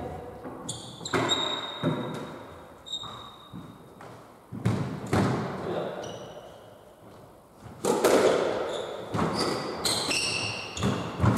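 Squash rally: the ball smacking off rackets and the court walls, the hits ringing in a hard-walled court, with sports shoes squeaking on the wooden floor between shots.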